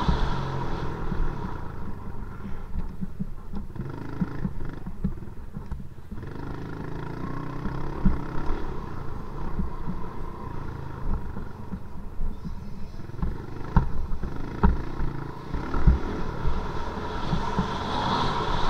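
Dirt bike engine running at speed on a motocross track, revving hard at first, easing off through the middle and building again near the end, with sharp knocks and thuds as the bike hits bumps and some wind on the microphone.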